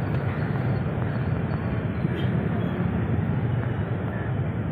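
Dense, slow-moving city traffic: many buses, trucks, cars and motorcycles running together as a steady low engine din.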